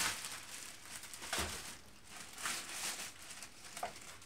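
Plastic bags crinkling and rustling on and off as packed ingredients are handled, with a soft thump about a second and a half in.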